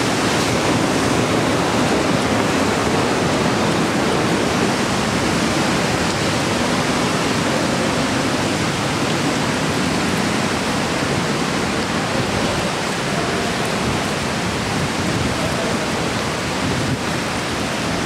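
Smoo Cave's waterfall, the Allt Smoo burn plunging fast from a height into the cave chamber, making a loud, steady, unbroken rush of water that eases slightly in the second half.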